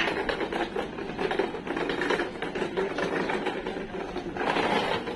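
Metal flatbed hand trolley being pushed over a tiled walkway, its small wheels and deck clattering in a rapid, continuous rattle.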